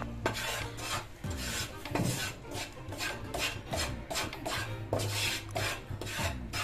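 Wooden spatula scraping and stirring dry rice flour in a non-stick frying pan, a rasping stroke two or three times a second, as the flour is dry-roasted on a low flame.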